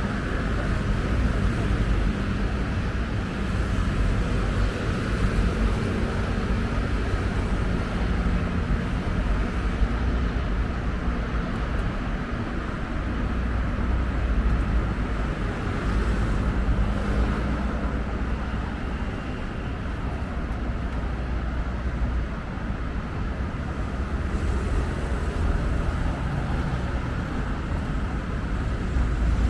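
Steady low rumble of vehicle noise, with no clear events standing out.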